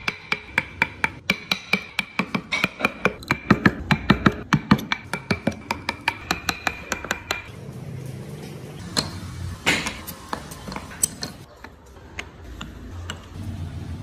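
A wood-carving chisel is tapped repeatedly into a wooden block, with sharp knocks at about four a second. They stop about seven seconds in, leaving a few scattered knocks.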